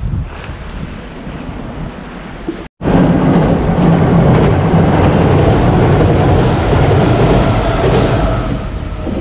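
Wind on the microphone, then after a short break a train crossing a railway bridge sets in about three seconds in with a loud, steady rumble that eases slightly near the end.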